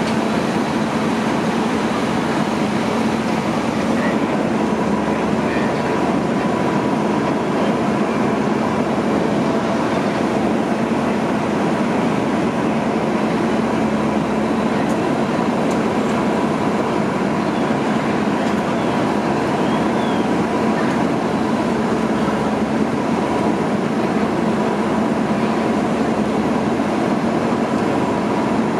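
Steady, unbroken engine drone with a constant hum, from fire apparatus running at the fire ground, in keeping with an engine pumping water into the hose line.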